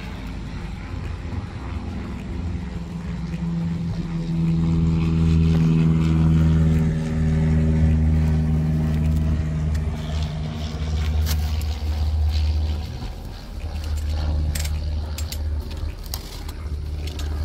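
A motor vehicle's engine running with a steady low hum that swells louder for several seconds in the middle, then eases. Near the end come a few sharp clicks and scrapes of a blade cutting stretch wrap and tape on cardboard boxes.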